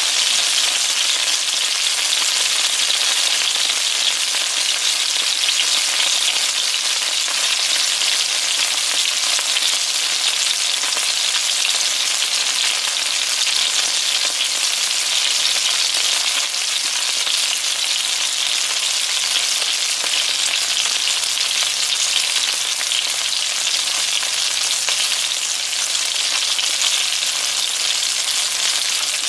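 Breaded fish fillets frying in shallow oil in a nonstick skillet: a steady sizzle with fine crackling.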